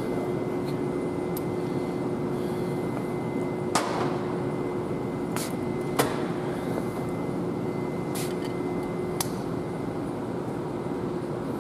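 Steady workshop hum with one held low tone, with a handful of sharp metallic clicks from wrenches being handled at the engine's gear train.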